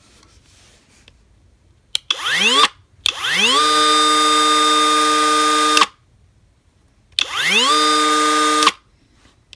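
Hyper Tough 20V brushless cordless cut-off tool run free with no wheel fitted, triggered three times. First comes a short burst, then a run of about three seconds, then one of about a second and a half. Each time the motor whine climbs quickly to a steady pitch and stops when the trigger is released.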